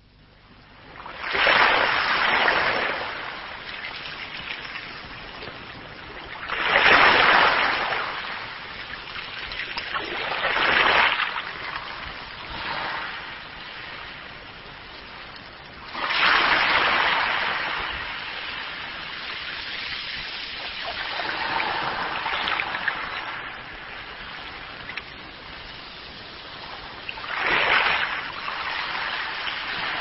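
Small sea waves breaking and washing up a sandy beach: a steady wash with about six or seven surges, each swelling and fading over a second or two, a few seconds apart.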